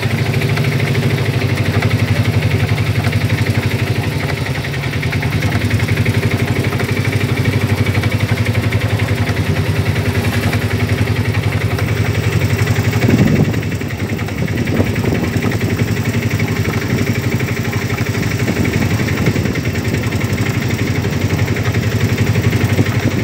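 Motor vehicle engine idling steadily, with a short louder bump a little past halfway.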